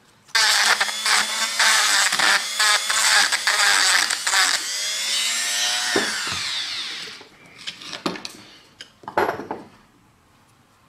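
Handheld electric rotary tool running at high speed with harsh, uneven grinding against metal, then switched off about four and a half seconds in and winding down over about two seconds with a falling whine. A couple of short knocks of metal parts being handled follow.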